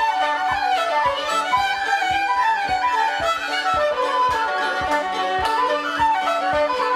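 Irish traditional dance tune played in unison on fiddle, wooden flute and tin whistle, over a strummed mandolin-family instrument keeping a steady pulse of about three beats a second.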